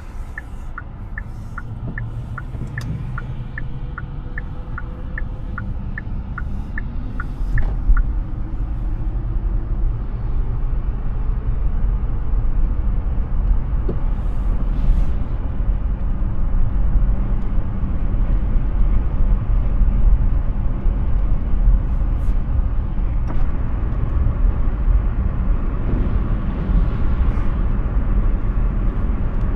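Hyundai Ioniq 6 electric car driving, its road and tyre noise a steady low rumble. A turn-signal indicator ticks about twice a second, then stops about seven seconds in. The rumble then grows louder as the car gathers speed.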